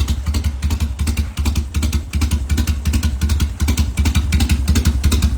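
Harley-Davidson FXR V-twin engine running at a steady idle, a fast even train of exhaust pulses, just brought back to life by a carburetor rebuild.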